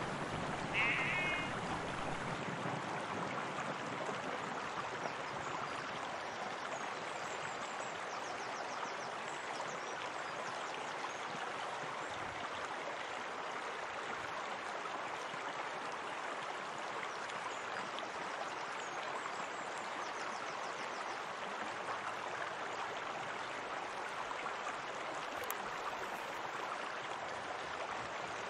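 Hot-spring water running steadily. About a second in, a brief high call rises over it.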